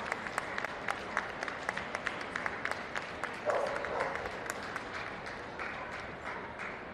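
Audience applause: many hands clapping irregularly, with a short call from the crowd about three and a half seconds in.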